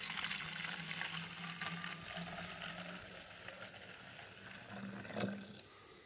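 Water poured into the neck of a plastic pump sprayer's tank, a splashing stream that gradually thins and fades out over about five seconds.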